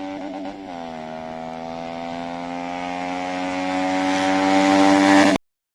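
Pulsar RS200's single-cylinder engine running through an Akrapovic mini slip-on exhaust as the motorcycle rides toward the microphone, its steady engine note growing louder. The note dips briefly about a second in, and the sound cuts off suddenly near the end.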